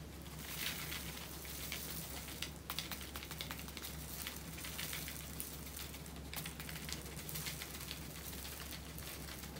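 Many small resin diamond-painting drills clicking and pattering as they are tipped out and shifted about, with plastic packaging crinkling. The clicks come in a steady, irregular stream.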